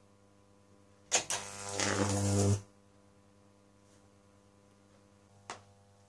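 Microwave-oven-transformer Jacob's ladder striking an arc: a sharp snap about a second in, then the high-voltage arc buzzes loudly for about a second and a half before cutting off suddenly. A faint steady hum runs between, and a single short click comes near the end.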